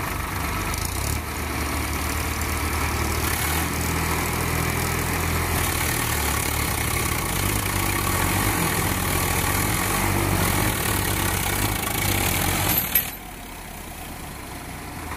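Diesel tractor engines working under load as a Swaraj 855 FE tows a straw-laden trolley and Eicher 557 out of soft, muddy ground. The engine sound is steady and grows slightly louder; a sharp knock near the end is followed by a quieter engine sound.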